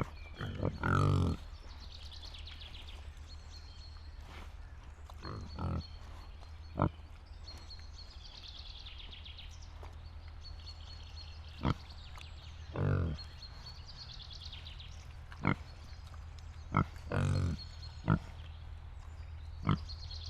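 Pigs grunting, about a dozen short grunts and a few longer, drawn-out ones at irregular intervals, over a steady low hum.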